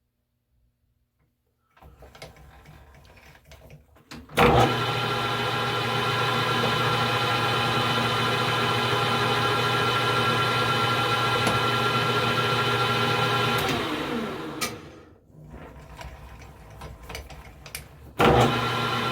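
Metal lathe starting with a sudden, loud, steady motor hum and whine, then coasting down as it is switched off. A few small clicks and knocks follow, and it starts again near the end. It is turning a test diameter on scrap stock.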